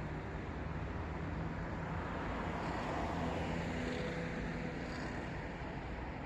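Road traffic: a steady rush of cars going past, louder for a moment near the middle as a vehicle passes closer, then easing off.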